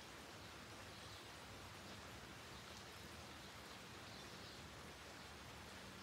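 Light rain falling on leaves, a faint steady hiss, with a couple of faint bird chirps, about a second in and about four seconds in.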